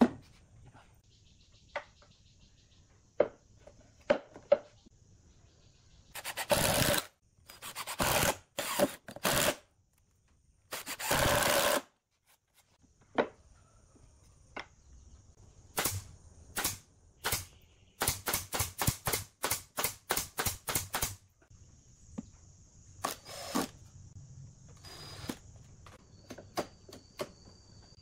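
Pneumatic nail gun shooting nails into wood: single shots and knocks scattered through, a few longer noisy spells of about a second, and a quick run of about a dozen shots about two-thirds of the way in.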